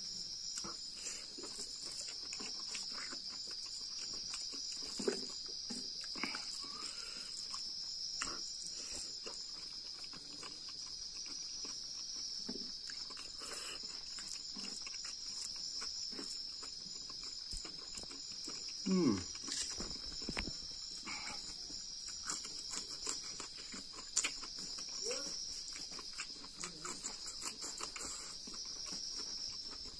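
Crickets chirping steadily behind close-up eating sounds from a man eating fish with bamboo shoots by hand: chewing, lip-smacking and fingers working the food on the plate, many short clicks and smacks. About two-thirds of the way through there is one brief low falling vocal sound, the loudest moment.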